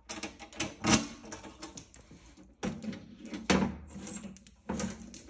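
Scattered clicks and knocks of a Notifier SFP-1024 fire alarm panel's metal cabinet door being shut and its key lock worked.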